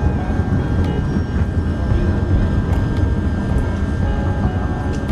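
Passenger train coach rolling along a station platform: a steady low rumble of the carriage running on the rails, with a few light clicks and a faint steady high tone over it.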